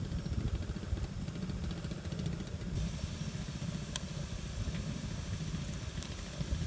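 Wind buffeting the microphone: an uneven low rumble, with a steady hiss that comes in abruptly about three seconds in.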